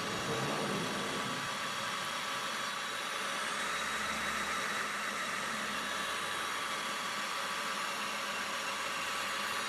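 Metal lathe running steadily: an even mechanical hum with a few faint steady tones over a haze of noise.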